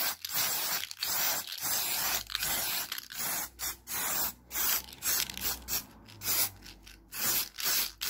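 Aerosol spray-paint can spraying in a series of short hissing bursts, each about a second or less, separated by brief pauses that grow longer in the second half.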